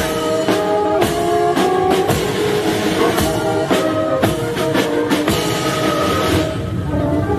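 A band playing slow music: held melody notes over a steady drum beat, with the drums dropping out near the end.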